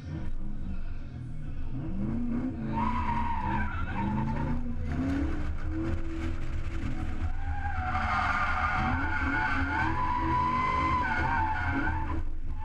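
Toyota Supra drift car's engine revving up and down while its tyres squeal through a long slide. The squeal starts about three seconds in, breaks briefly, and is strongest in the second half.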